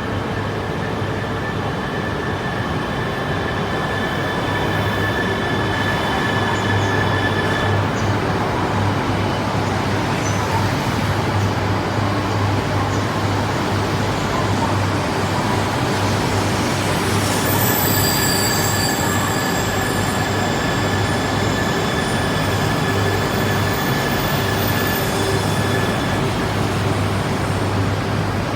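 Shinkansen bullet train moving at the platform: a steady, loud rail rumble with thin high whining tones that fade out and come back partway through.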